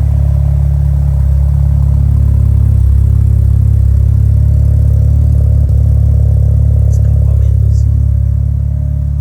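Tuned Volkswagen Jetta GLI's turbocharged four-cylinder engine idling steadily on the raised idle of a cold start, warming up. It is a loud, even low hum that eases a little near the end.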